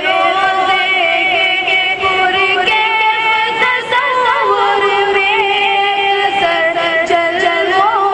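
A boy's voice singing a naat solo into a microphone, with long held high notes decorated by quick wavering ornaments and slides.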